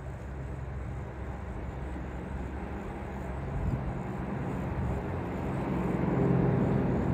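A low, steady rumble of outdoor background noise that grows louder about halfway through.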